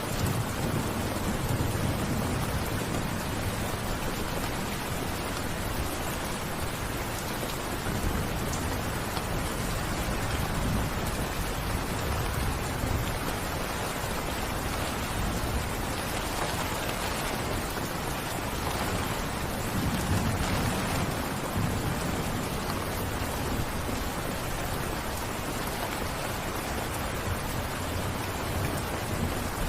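Steady, even rain falling, a continuous hiss, with low rumbles swelling a few times: near the start, about ten seconds in and about twenty seconds in.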